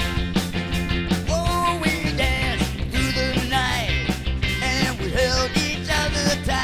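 Rock music with a steady beat. From about a second in, a lead line plays notes that bend and glide in pitch.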